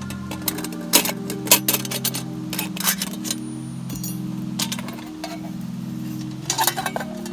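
Background music of slow, held chords, with many sharp clicks and clinks over it.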